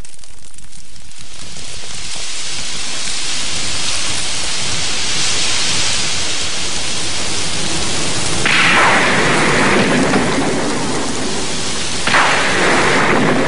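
Heavy rain falling, fading in over the first couple of seconds, with rolls of thunder swelling about two-thirds of the way through and again near the end.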